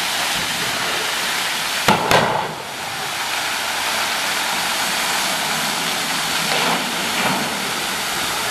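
Water jets of a large fountain spraying and splashing back into the basin, a steady rush of falling water. About two seconds in there are two sharp knocks with a brief surge, after which the rush dips slightly.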